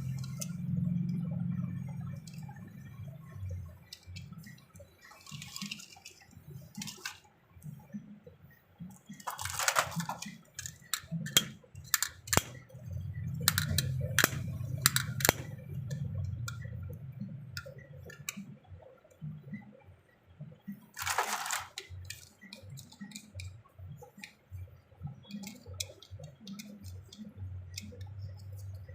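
Handling sounds of small die-cast toy vehicles and their packaging: scattered sharp clicks and taps over a low rubbing rumble, with two short rustles, about ten seconds in and about twenty-one seconds in.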